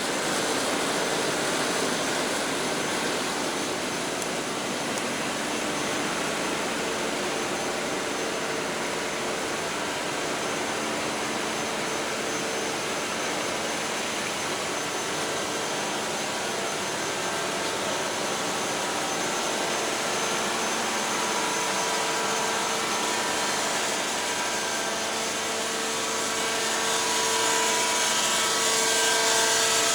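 Gas-pipeline reconstruction machinery running loudly and steadily at night: a continuous jet-like rushing noise with a steady whine in it, growing a little louder near the end.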